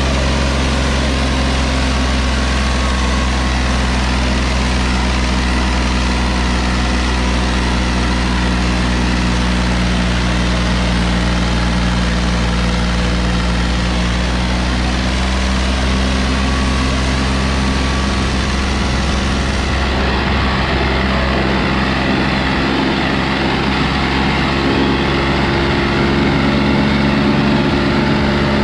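John Deere 5045 tractor's diesel engine running steadily under load, working a disc harrow in four-wheel drive.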